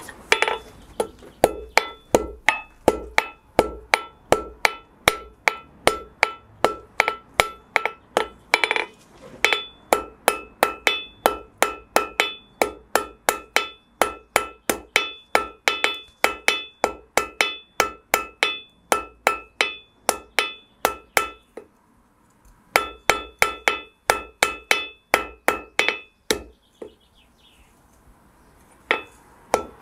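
Hand hammer striking red-hot iron on a steel anvil in a quick, steady run of blows, each with a bright metallic ring from the anvil, with two short breaks near the end. The smith is drawing out the point of a medieval socketed arrowhead to a square section.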